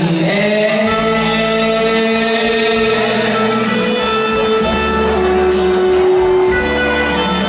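A male singer sings through a handheld microphone and PA over instrumental accompaniment, holding long sustained notes in a large, reverberant banquet hall.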